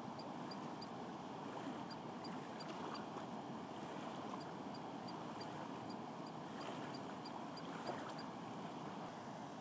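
Steady rush of water from a small waterfall, with faint high pips about three a second coming and going.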